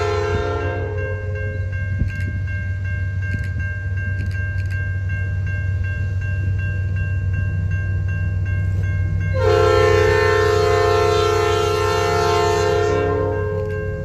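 CN freight locomotive's air horn sounding over the steady rumble of the train. One chord blast cuts off about a second in, and a second long blast starts about nine and a half seconds in and holds for about four seconds.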